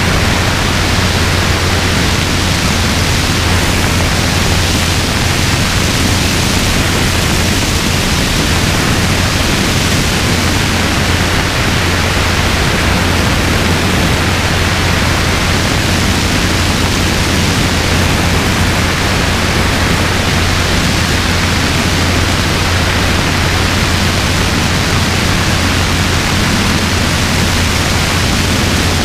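Robinson R22 helicopter in flight: a steady, loud rush of airflow and rotor noise with a constant low hum underneath, unchanging throughout.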